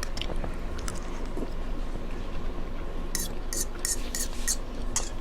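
Close-miked eating sounds from a mukbang of baked macaroni: a quick run of about six short, crackly sounds a little past halfway and one more near the end, over a steady low hum.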